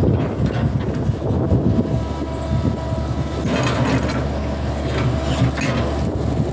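Hitachi hydraulic excavator working, its diesel engine and hydraulics running steadily under load, with metallic clanking and scraping from about halfway through.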